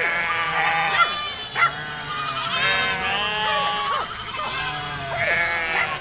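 A herd of goats bleating, many overlapping calls, some wavering in pitch, following one another without a pause.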